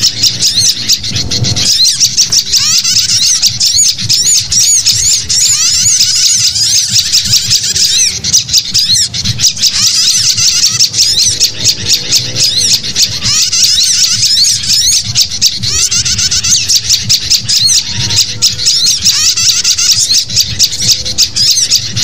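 A bird-lure recording of small songbirds calling together: a dense, unbroken chorus of quick, high chirps and trills that never pauses. The chattering of sooty-headed bulbuls (kutilang) is mixed with the calls of other small birds.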